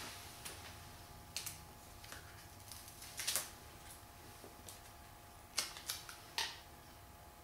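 Faint, scattered clicks and rustles of a printed display-film sign being peeled from its cardboard backing and handled, about half a dozen short sounds with quiet in between.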